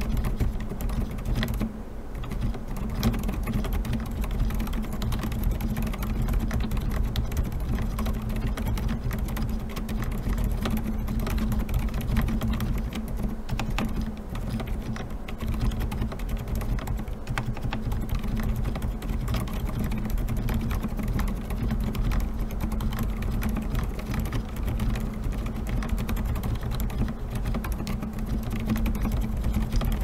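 Continuous fast typing on an FL-Esports OG87 mechanical keyboard fitted with stock FL Silent Grey Snow silent switches, in a foamless injection-molded plastic case on an MDF desk. The keystrokes come as a dense, steady stream of muted thuds with a hollow plastic case resonance.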